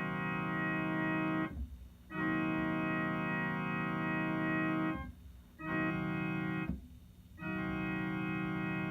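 Electronic keyboard imitating the chord of a Nathan K5H/K5L five-chime train horn, played as steady chords that cut off cleanly: the end of one blast, then a long blast, a short one, and another long one, the grade-crossing horn pattern.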